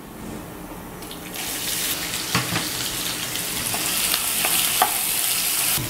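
Chopped onions go into hot oil in a non-stick frying pan where mustard seeds and urad dal are already frying; about a second in the oil breaks into a loud, steady sizzle. A spatula stirs through the onions, with a few sharp scrapes against the pan.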